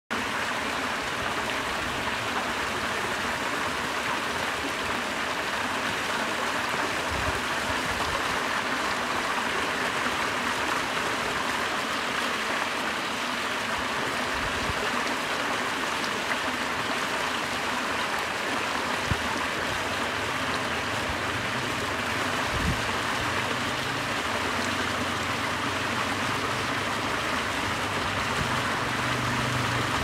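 Water of an ornamental cascade fountain pouring in a sheet over a stone wall and splashing into a shallow channel: a steady rush and splash. A few soft low thumps come through now and then.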